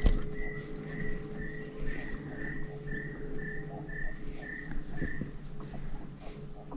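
Insects shrilling in one steady high tone, with a run of about a dozen short repeated chirps, about two a second, that stops about five seconds in. A few faint knocks are heard now and then.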